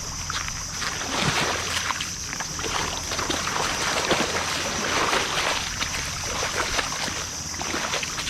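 Irregular crunching of footsteps on a stony shore, under a steady high-pitched drone of insects.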